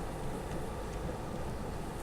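Storm wind blowing, with wind buffeting the microphone as a steady low rumble.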